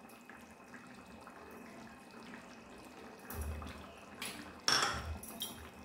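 Quiet kitchen handling sounds: a soft knock about three and a half seconds in, then a short clatter of a bowl and steel kitchenware being set down on the counter near the end.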